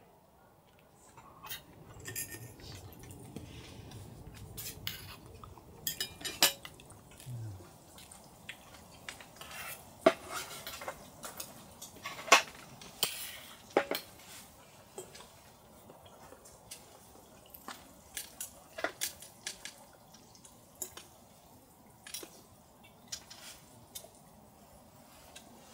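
A series of light, irregular clinks and knocks of utensils against dishes or cookware. Several ring briefly, and the loudest come about ten and twelve seconds in.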